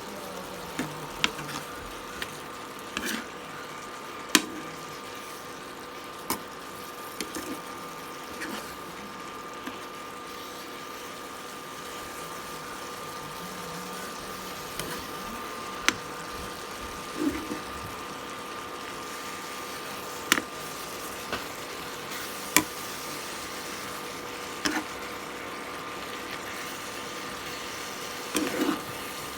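Cooking sounds: scattered sharp knocks and clinks of utensils against cookware over a steady hum.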